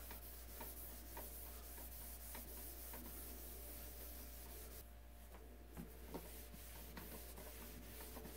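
Faint rubbing of a felt pad and cloth over a Bakelite cabinet, working in a restoring finish, with a few light ticks.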